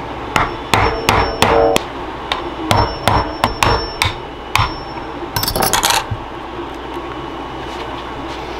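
Hammer tapping a flat tool into the seam of the plastic case of an Amped Outdoors 12Ah lithium battery to crack it open: about a dozen sharp strikes over four seconds. A second later comes a short, harsh crackling burst as the case is worked apart.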